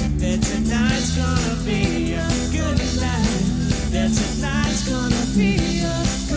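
Live band playing, with a singer's voice wavering over steady bass and a regular drum beat, picked up from on the stage.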